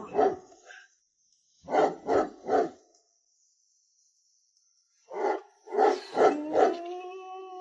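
Dog barking in short groups, first two barks, then three, then four, the last of them drawn out into a long, steady howl near the end.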